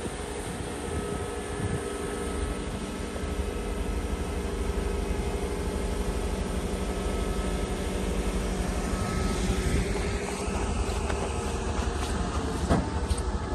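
Diesel engine of a Liebherr LG-1750 crane carrier running steadily as the heavy carrier moves slowly: a low rumble with a steady hum of several tones on top.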